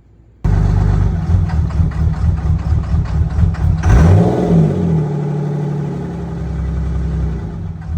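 6.7 Cummins inline-six turbodiesel coming in abruptly about half a second in and idling roughly with uneven pulsing, with a brief rise and fall in engine speed around the middle before settling to a steadier idle. The rough idle is put down to a faulty fuel rail pressure sensor.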